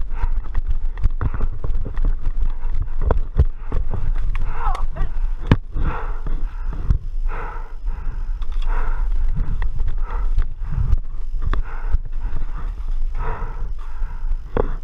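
Heavy, rhythmic breathing close to a body-worn camera's microphone, over a steady rumble of wind and handling noise. Scattered knocks and clicks from movement, dense in the first few seconds.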